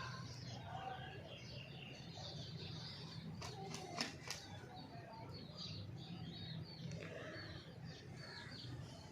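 Golden Misri chickens calling: a steady stream of short, high peeps with softer, lower clucks among them. A few sharp clicks come about four seconds in.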